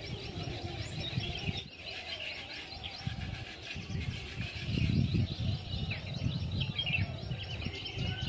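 Many small birds chirping in quick, short, overlapping notes, over an uneven low rumble.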